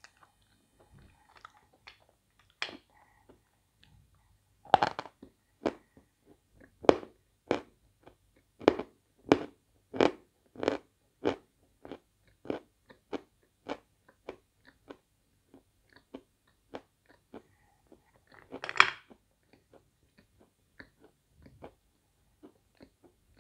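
Natural edible chalk (Svetogorye chalk chunks) being chewed: a steady run of crisp crunches, about one and a half a second, starting about five seconds in and fading after about sixteen seconds, with one louder, longer crunch a little before the end.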